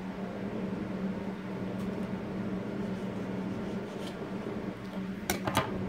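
Steady hum of a window air-conditioning unit with one low steady tone, while a kitchen knife cuts into a small hot pepper held in the hand: a few faint ticks, then two sharp clicks close together near the end.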